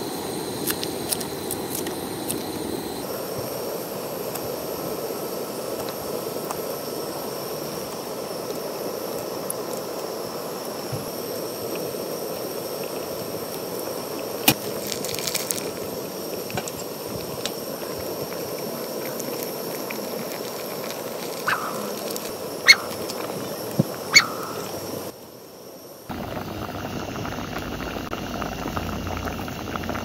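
Pot of red stew boiling hard on a portable gas burner: a steady bubbling, rushing noise, with a few sharp pops in the second half.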